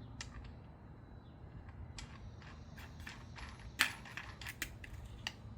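Small clicks and metallic taps from handling a Hammerhead angle grinder's parts as a thin cut-off disc and its flange nut are fitted onto the spindle, with one sharper click a little before four seconds in.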